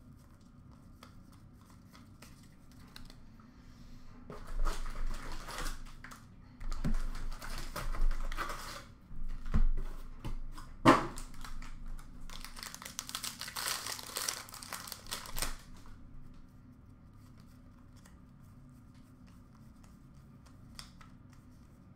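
A hockey card pack wrapper being torn open and crinkled, with cards and packaging handled in several bursts of rustling and one sharp knock midway.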